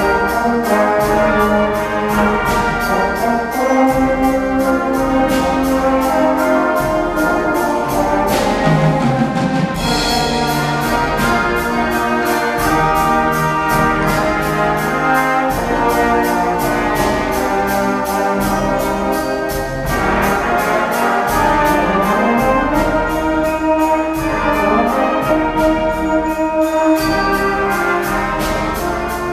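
Elementary school brass band of tubas, euphoniums, trumpets and percussion playing a piece together to a steady beat.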